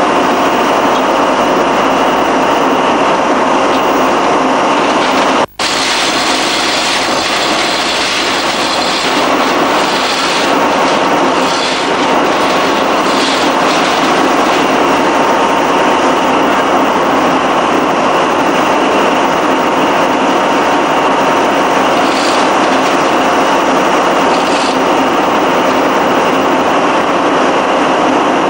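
Loud, steady machinery noise in a frigate's engine room, a constant heavy drone with no change in pitch. The sound cuts out for an instant about five and a half seconds in.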